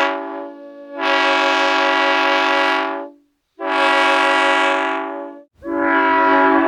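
Train horn sounding a chord: a short toot, then two long blasts of about two seconds each with a brief gap between. Near the end the horn starts again, now with a low rumble beneath it.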